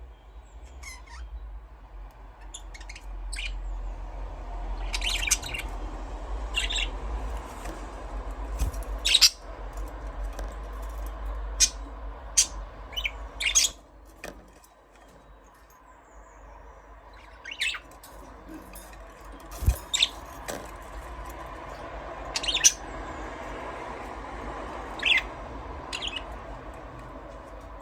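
Budgerigars chirping: many short, sharp, high calls at irregular intervals, a few of them loud, over a faint low rumble.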